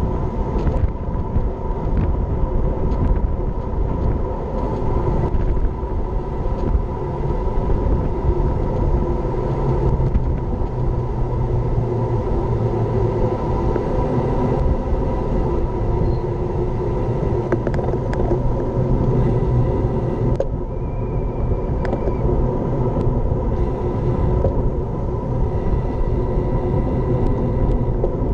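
Steady wind rush and tyre rumble picked up by an action camera riding on a road bike that rolls along at speed.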